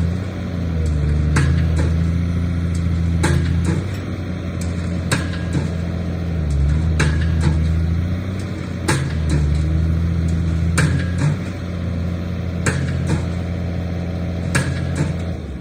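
Hyundai Robex 290LC-9 excavator's diesel engine running, its pitch and level shifting as the hydraulics take load. A sharp metallic knock comes about every two seconds. The engine shuts off near the end.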